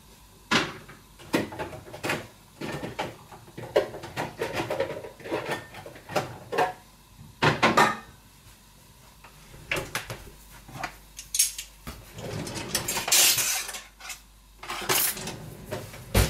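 Kitchen clatter of crockery, pans and cutlery being handled: an irregular run of knocks and clinks, with a short hiss about thirteen seconds in.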